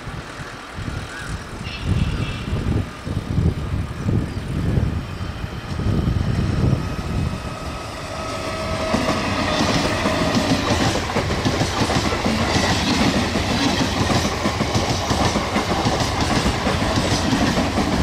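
ICF-built electric multiple unit suburban train approaching and then running past close by, its wheels clattering over the rail joints. About eight seconds in, the clatter grows louder and steadier as the coaches pass alongside.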